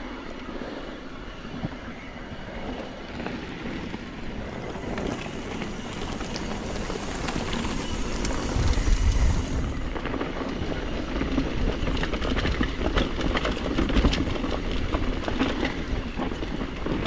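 Mountain bike riding downhill on a dirt trail: tyres rolling over rough ground and the bike rattling with many small knocks, getting louder as speed builds.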